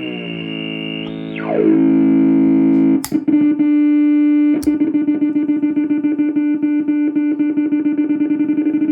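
Stansi noise synth playing a buzzy electronic drone. About a second in the pitch slides down, and two sharp clicks follow. The tone then settles into a steady note with a fast, even wobble.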